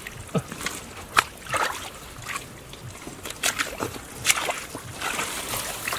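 Shallow muddy water sloshing and splashing in short, irregular bursts as hands grab catfish in it and feet step through it.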